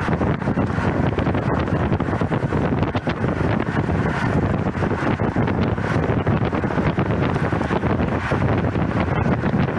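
Steady wind rushing over a bicycle-mounted camera's microphone while riding in a road-cycling pack at about 27 mph.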